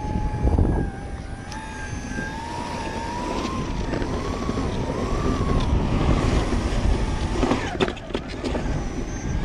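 Electric skateboard rolling on concrete: the single 6374 brushless motor, run by a VESC 6 on a 12S battery, gives a thin electric whine that wavers up and down with speed over the wheels' steady rumble. The whine fades out, and a few sharp knocks follow near the end.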